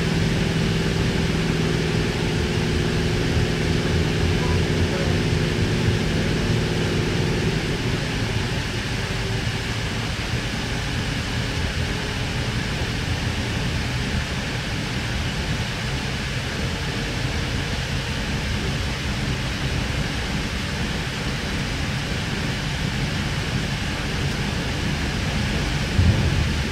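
Interior of a moving Sydney K-set double-deck electric train: a steady rumble of wheels on track, with a low electric hum that fades away about eight seconds in. A short knock near the end.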